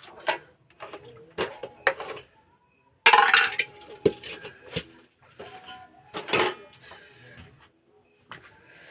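Metal cooking pots and utensils clanking and clinking in a string of separate knocks, the loudest a clatter about three seconds in.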